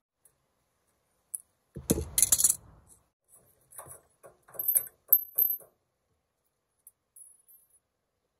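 Drum brake shoes and their steel return springs being pulled off the backing plate: a loud metallic clank about two seconds in, then lighter clinks and spring jingling over the next few seconds.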